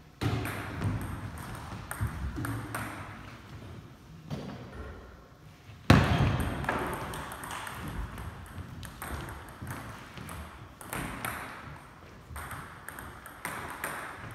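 Table tennis ball clicking off paddles and the table in quick rallies, with a loud sharp knock about six seconds in, the loudest event.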